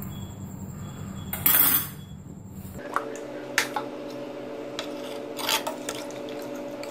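Steady low hum under a pressure cooker on the stove, with a short burst of hiss about a second and a half in. Then a metal ladle stirring thin broth in the aluminium pressure-cooker pot, sloshing the liquid and clinking against the pot a few times.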